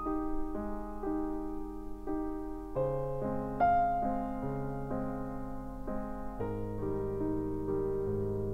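Soft piano music in a film score: gentle repeated chords struck about twice a second, with lower bass notes joining about three seconds in.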